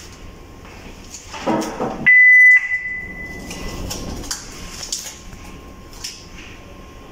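A single loud, high-pitched electronic beep from the medical test equipment lasts about half a second, about two seconds in, with a fainter trailing tone after it. Around it are rustling and small clicks of ECG lead cables and snap connectors being handled and fitted onto the analyzer.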